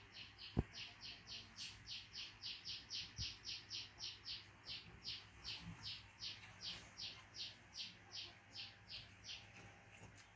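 A small bird chirping over and over in a steady run of short, high chirps, about three or four a second, stopping near the end. A single sharp knock sounds about half a second in.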